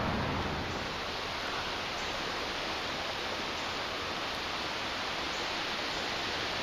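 Steady rush of a flooded river running high and fast, an even hiss of moving water.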